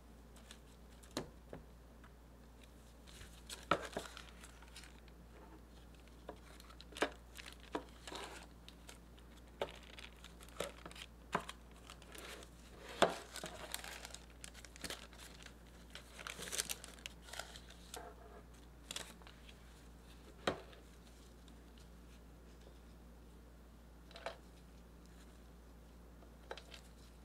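Parchment paper lining a plastic container crinkling and rustling in short irregular bursts as a spatula spreads whipped cream against it, with scattered light ticks.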